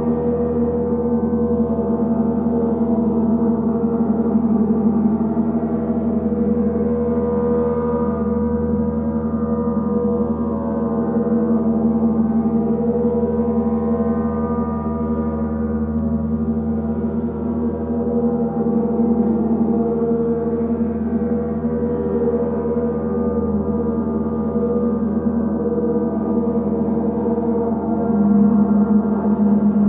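Three gongs, a large centre gong and two smaller side gongs, played continuously with mallets. Their overlapping tones blend into one dense, steady drone with no sharp strikes, swelling gently and growing a little louder near the end.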